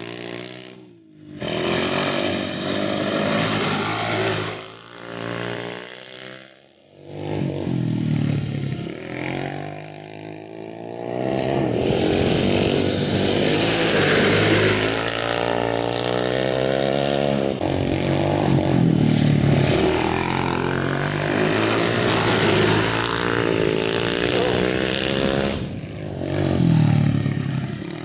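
Small off-road engines, a Kawasaki KLX110 dirt bike's single-cylinder four-stroke and a youth quad bike's engine, revving up and down as they ride. The engine note rises and falls with the throttle and drops away briefly about a second in and again around six seconds in.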